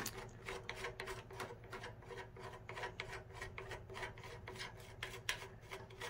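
A threaded headset nut being spun off a fork's steerer tube by hand: a quick, uneven run of faint metallic clicks and scraping from the threads.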